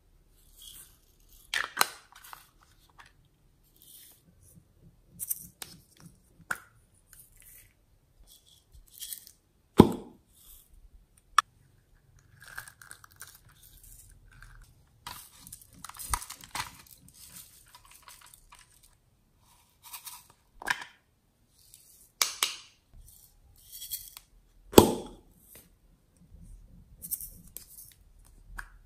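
Thin plastic packets crinkling and rustling as sequins and glitter are shaken out onto slime, broken by sharp clicks and knocks of small hard plastic containers being handled and snapped open.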